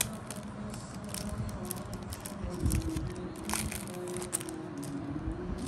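Crinkling and rustling of a trading-card pack wrapper as the pack is opened and the cards are handled, with faint background music.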